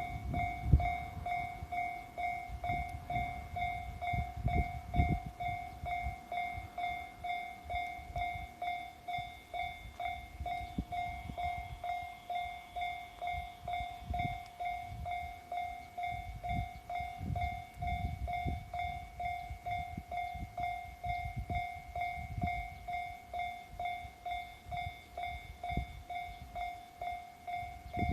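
Japanese level-crossing warning bell ringing, the electronic 'kan-kan' alarm repeating in a steady, even rhythm, with irregular low rumbles underneath.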